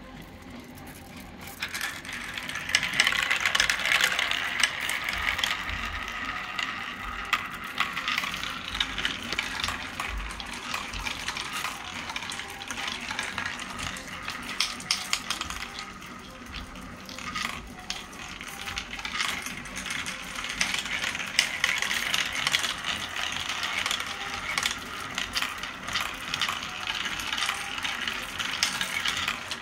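Marbles rolling and clattering down the 3D-printed PETG tracks of a marble run, with the step lift clicking as it carries them up. It is a continuous busy rattle of small plastic clicks that starts about two seconds in.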